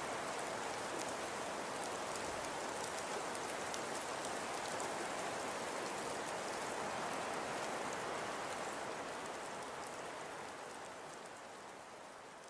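Steady rain-like hiss sprinkled with faint ticks, fading out over the last few seconds.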